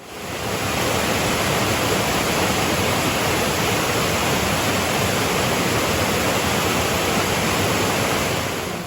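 Waterfall on a river swollen with rain: a steady, loud rush of falling water, fading in quickly at the start and fading out at the end.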